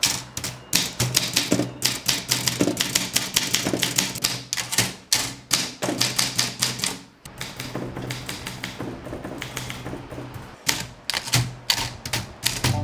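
Manual typewriter being typed on: quick runs of clacking keystrokes, with a short break about seven seconds in.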